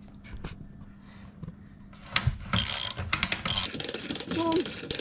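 Ratchet wrench with an extension and socket clicking rapidly as it turns the winding bolt of a garage door torsion spring, winding up the spring tension. A few faint clicks come first, then the dense ratcheting starts about two seconds in.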